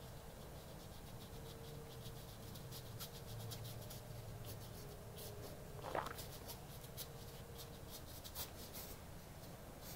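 Paintbrush strokes scratching and swishing on a large canvas in quick short runs, over a faint steady hum. One louder brief knock about six seconds in.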